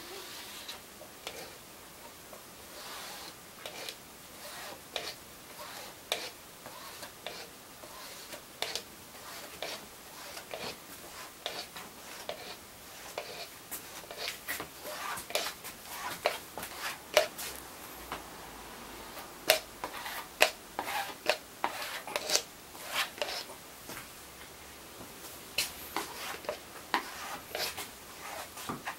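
Plastic automotive squeegee dragged in short strokes over epoxy-soaked fiberglass cloth, scraping excess resin off the laminate: a run of irregular scrapes and sharp ticks that come thicker and louder in the second half.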